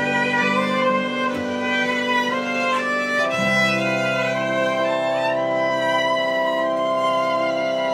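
Small live band playing without singing: bowed violins holding long notes over an electric keyboard and strummed acoustic guitar, the chord changing about three seconds in.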